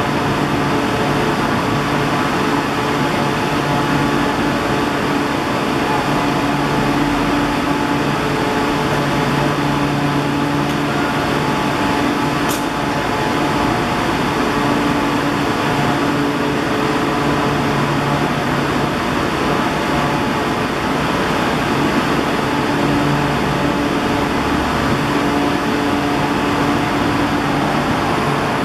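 Steady mechanical hum and rumble with several humming tones that fade in and out, holding an even level throughout, with a single sharp click about halfway through.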